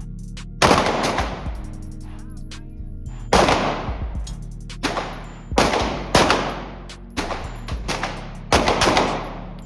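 Gunshots at a shooting range: about eight single shots at uneven intervals, some in quick pairs, each with a long ringing echo. Background music plays under them.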